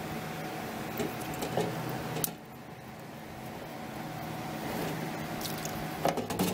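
Quench oil flaring up and burning in a steel ammo can around a red-hot forged hammer head: a steady rushing hiss that drops off suddenly about two seconds in, with a few light knocks.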